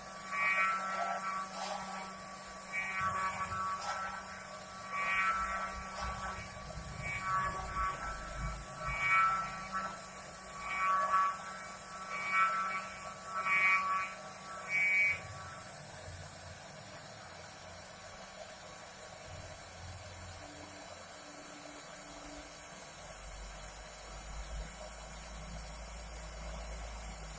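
Stepper motors of a DIY CNC router whining in short bursts, about a dozen over the first fifteen seconds, as the machine moves through its carving path. After that only a steady low hum remains.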